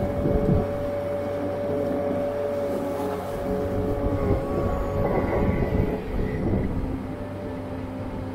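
Farm loader tractor's engine running steadily as it drives with a bucket full of silage, with knocks and rattles from the loader and frame over rough, rutted ground about half a second in and again from about four to six and a half seconds. The sound gets a little quieter near the end.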